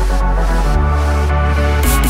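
Electronic dance music: sustained synth chords over a deep bass line, with bright high hi-hat-like sounds coming in near the end.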